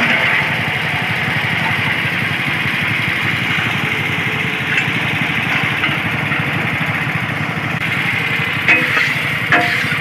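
Small engine of a mobile egg-laying concrete block machine running steadily with an even, fast flutter. A few short knocks come near the end.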